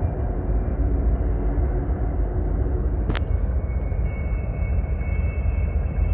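Steady low rumble of background noise, with a single sharp click about three seconds in and a faint, steady high-pitched whine from about four seconds on.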